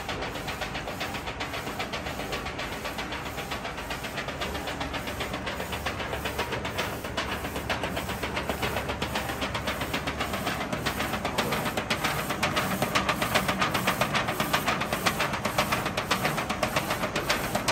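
Visual-Tex A3 DTF printer and its powder shaker unit running: a steady hiss with a fast, even mechanical rattle, growing louder about halfway through.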